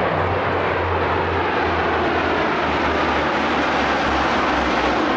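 Three C-130H Hercules transports flying over in formation, their Allison T56 turboprops running in a steady drone with a low propeller hum underneath.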